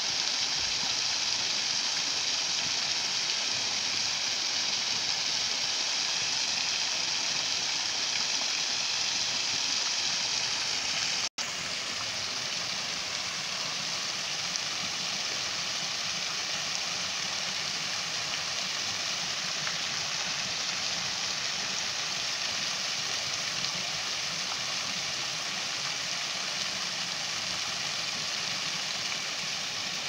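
Water falling in thin streams over a mossy stone weir and splashing onto rocks below: a steady rushing hiss. It cuts out for an instant about eleven seconds in and resumes slightly quieter.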